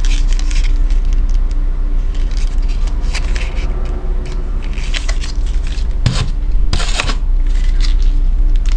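Leather knife sheath being handled: scraping and rustling of leather with a few sharp knocks about six and seven seconds in, over a steady low hum.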